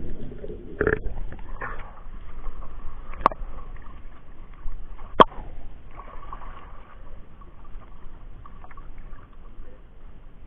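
Muffled water sloshing and splashing around an action camera held at and below the sea surface while a fishing net is hauled up, with two sharp clicks about three and five seconds in.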